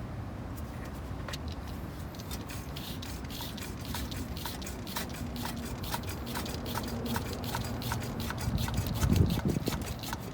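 Engine coolant being sucked out of the expansion tank by a hand pump, gurgling and spluttering in a growing run of irregular clicks and pops, with the tank running almost empty.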